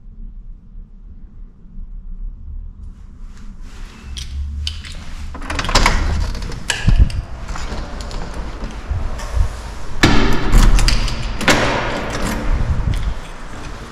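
Front door being unlocked and opened by hand: scattered clicks and rattles of the lock and handle, then louder knocks and thuds as the door moves, about five seconds in and again from about ten seconds.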